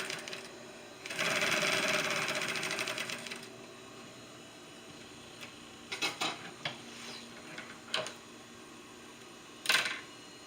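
Industrial sewing machine stitching in one fast run of about two seconds, driven from the foot pedal, then stopping. Several sharp clicks follow, with a louder clack near the end.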